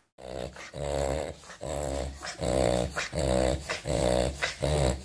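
French bulldog reverse sneezing: a rapid, rhythmic run of loud snoring, rasping pulls of air drawn in through the nose, about one and a half a second. The sound comes from sudden, jerky inhalations, a reflex that is rarely a sign of illness.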